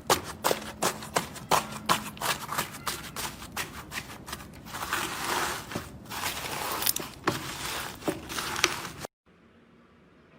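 Slime being squeezed and poked by hand, giving sharp sticky clicks about three a second, then a denser crackling squish. The sound cuts off abruptly about nine seconds in, leaving faint room tone.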